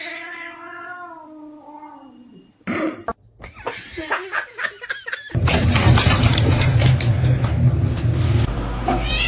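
A cat's long, drawn-out meow lasting about two and a half seconds, its pitch rising a little and then falling away. It is followed by a few short clattering knocks, then from about five seconds in by a loud, steady noise with a low hum.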